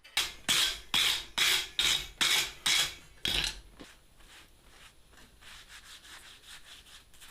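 Rhythmic rasping strokes of a hand tool worked back and forth on metal, about two and a half a second, loud for the first few seconds and then carrying on faintly.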